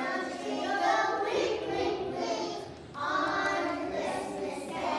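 A group of three-year-old preschoolers singing together, with a brief break about three seconds in.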